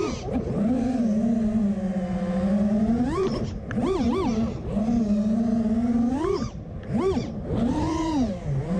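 FPV quadcopter's motors and propellers whining, mostly at a steady pitch, with sharp swoops up and down several times as the throttle is cut and punched during freestyle flying.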